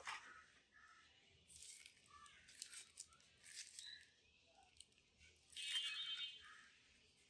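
Packaging being handled during an unboxing: a sharp click at the start, then quiet intermittent rustling and scraping, with a louder crinkling rustle about six seconds in.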